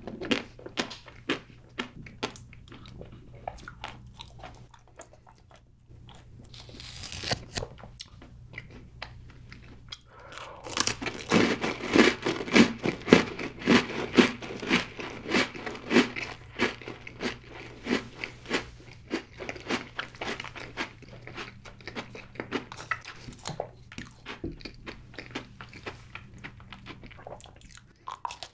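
Close-miked chewing and crunching of crunchy chocolate snacks. The crunching turns dense, loud and rhythmic from about ten seconds in, then thins out near the end.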